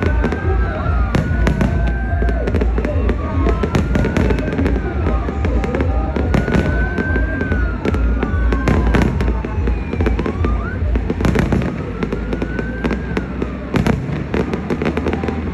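Fireworks display: a dense run of bangs and crackles over a deep low rumble, with several long whistles gliding in pitch. The rumble eases a little in the last few seconds.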